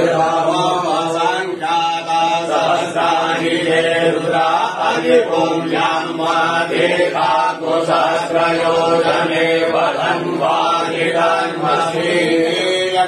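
Hindu mantra chanting: voices reciting in a steady rhythm over a continuous low hum.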